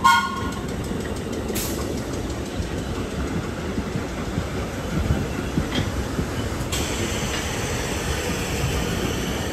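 Vintage New York subway train running on the track: a steady wheel-and-car rumble with a few sharp clacks, and a faint high wheel squeal joining about two-thirds of the way in. A brief high tone sounds right at the start.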